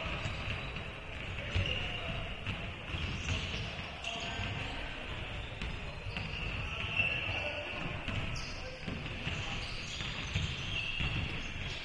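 Basketball bouncing on a hardwood court during a game, thudding at irregular intervals, with sneakers squeaking on the floor and players calling out.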